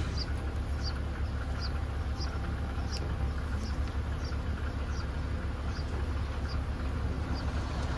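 BMW Z4 3.0si's inline-six idling steadily, with short high chirps repeating about twice a second over it.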